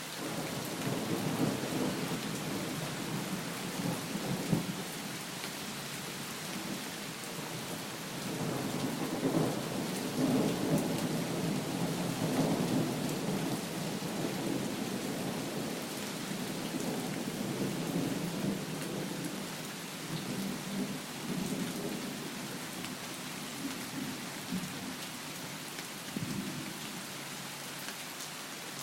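Steady heavy rain hissing, with rolling thunder that swells and fades several times underneath it, loudest in two long rumbles near the start and about a third of the way in.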